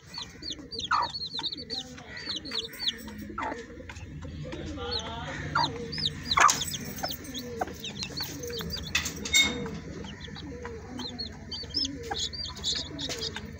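A brood of chicks peeping in many short, high calls, over the low clucking of their mother, a naked-neck hen.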